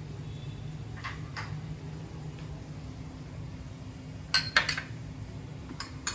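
A spoon and small glass bowls clinking on a kitchen countertop: two faint clicks about a second in, then a few sharp clinks about four seconds in and two more near the end, over a steady low hum.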